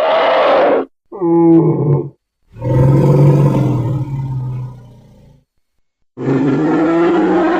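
A string of separate animal-style roars and calls used as glyptodont sound effects: a call that cuts off under a second in, a short pitched cry, then a longer deep roar that fades out, and another call starting near the end, with brief silences between them.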